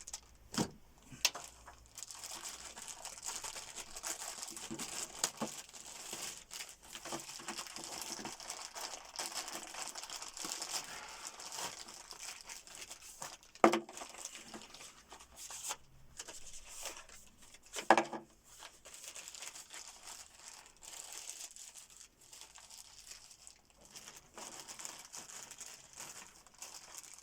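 Packaging crinkling and rustling as it is handled, with small clicks throughout and two sharp knocks, one about halfway through and another a few seconds later.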